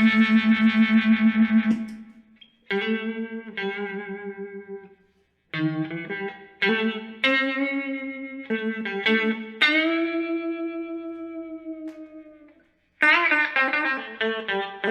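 Electric guitar played through a Moen Jimi Nova univibe pedal: chords strummed and left to ring, with a throb of about five pulses a second running through them. The playing stops briefly a few times between phrases.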